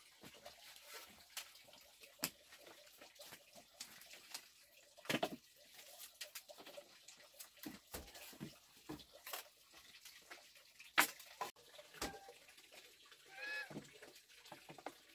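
Bamboo poles and a bamboo shelf frame knocking and clattering as they are handled and set against a woven bamboo wall. There are scattered sharp knocks, the loudest about five and eleven seconds in, and a short high call near the end.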